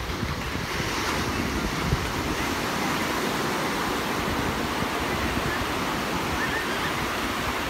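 Small waves breaking and washing up on a sandy beach, a steady rush of surf, with wind rumbling on the microphone.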